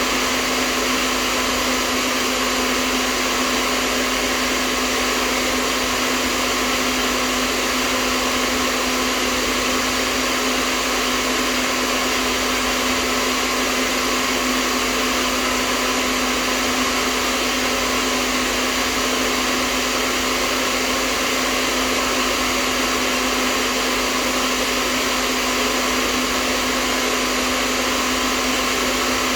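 Hair dryer running steadily: an even rush of blown air over a constant motor hum, with no change in speed or level.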